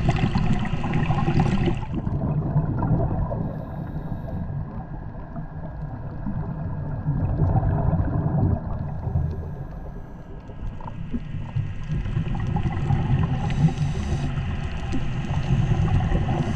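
Underwater ambience picked up by a submerged camera: a steady, muffled low rumble of moving water, with bursts of hissing at the start and twice near the end.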